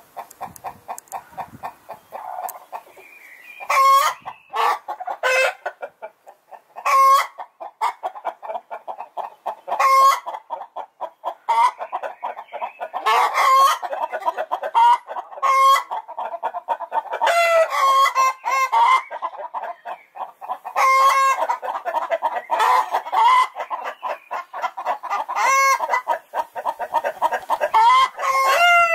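Hens clucking rapidly and continuously, with loud, sharp cackling calls breaking out every one to three seconds.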